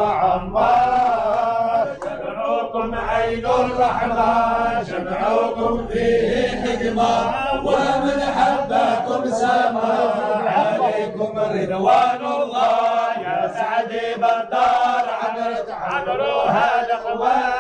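A group of men's voices chanting together in long sung phrases: a Sufi devotional chant of the Alawiyya brotherhood.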